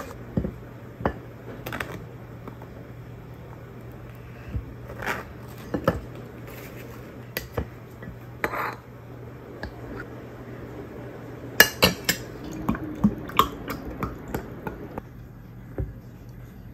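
Table knife clinking and scraping on a ceramic plate while cutting a block of cold butter, with the butter's foil wrapper crinkling at the start. Scattered clinks and taps, with a quick flurry of them about twelve seconds in.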